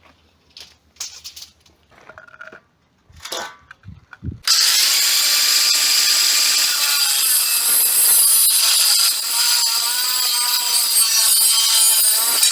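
A few light knocks and handling clicks on metal, then, about four and a half seconds in, an electric power tool starts cutting or grinding metal. It gives a loud, steady hiss with a whine that wavers in pitch as the load changes.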